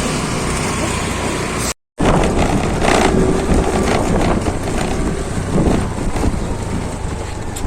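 Steady engine and road noise from a moving vehicle. It cuts off abruptly about two seconds in, followed by rough wind noise on the microphone with scattered knocks and rustling.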